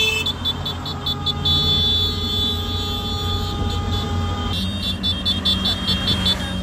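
A convoy of motorcycles and maxi-scooters riding along a road with engines running, with held horn tones and a rapid high-pitched beeping over the engine noise.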